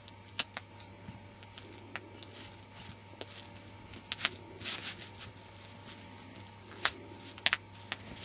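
Small tools and a plasticine model being handled on a table: scattered sharp clicks and taps, with a brief rustle about four and a half seconds in.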